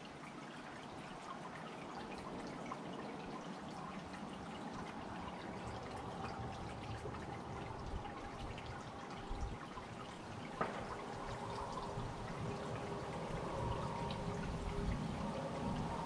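Small tiered garden fountain, its water steadily trickling and splashing, with a single sharp click about ten seconds in.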